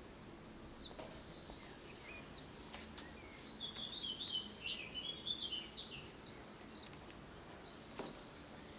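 Small birds chirping: short, high, downward-sweeping chirps, with a quick run of twittering in the middle. A few faint clicks sound underneath.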